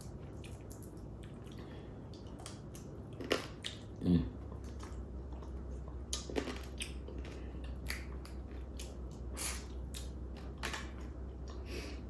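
Close-up eating of whole seasoned crabs: chewing with many small wet mouth clicks and cracks as the shells are picked apart. A brief low vocal murmur comes about four seconds in.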